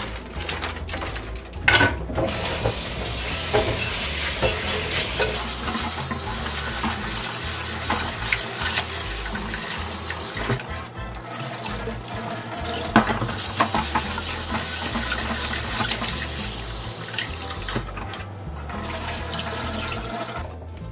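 Kitchen faucet running into a stainless steel sink while lentils are washed by hand in a glass bowl, the water swirled and poured off. The flow breaks off briefly twice.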